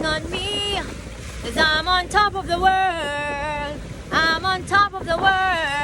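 A high-pitched voice in long, drawn-out, gliding notes, like singing or sing-song calling, over a steady rumble of wind and surf.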